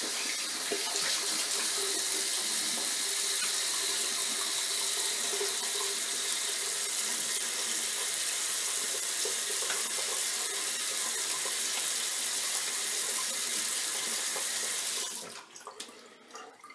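Bathroom sink tap running steadily for a cold-water face rinse after a shave, shut off about fifteen seconds in.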